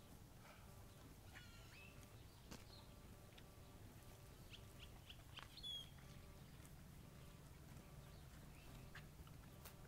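Near silence with faint, scattered bird chirps, a cluster of short high ones about halfway through, over a steady low hum.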